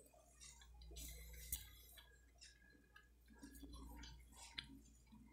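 Faint chewing of a soft mouthful of sausage and mashed potato, with a few small clicks; otherwise near silence.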